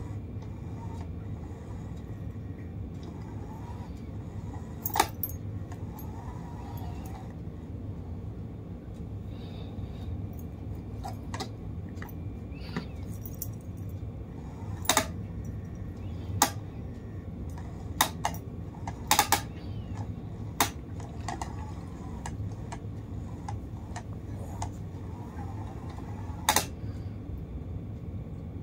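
A cat playing with a fabric-covered toy: about ten sharp clicks and rattles, irregularly spaced, as it paws and pounces on the toy, over a steady low hum.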